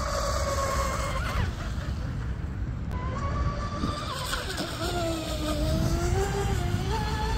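Twin Turnigy XK3674 2200kV brushless motors of an RC mono speed boat whining at speed on 6S. The pitch falls away about a second in, comes back, dips briefly, then climbs slowly toward the end. A low rumble runs underneath.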